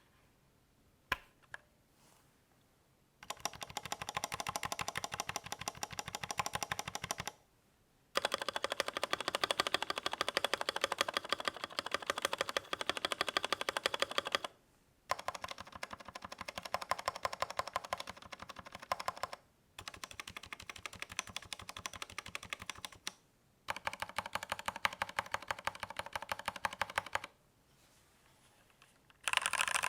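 Redragon K556 SE mechanical keyboard being typed on fast, in runs of rapid key clicks lasting several seconds each, broken by short pauses. A couple of single keystrokes come about a second in.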